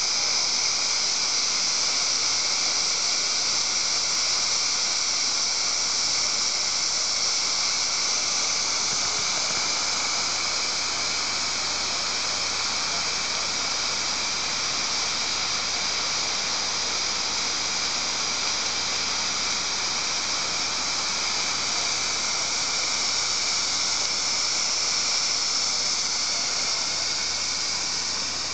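Fagor Splendid pressure cooker's valve venting steam: a steady, high hiss that holds unbroken throughout.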